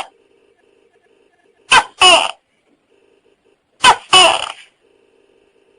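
Tokay gecko calling "to-kay" twice, about two seconds apart: each call is a short clipped syllable followed by a longer, falling one.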